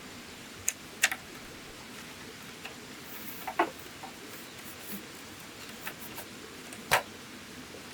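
A few scattered sharp clicks and knocks over a steady faint hiss, the loudest about a second in and again near the end.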